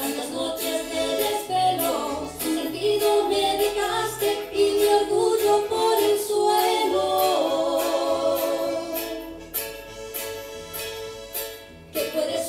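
A woman singing a Spanish-language song over instrumental accompaniment, with long held notes in the second half.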